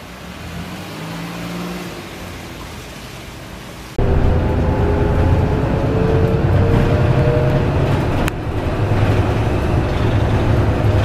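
Street traffic noise with a vehicle going by, then, from about four seconds in, the cabin noise of a moving tour bus: a steady engine drone with a faint, slowly rising whine.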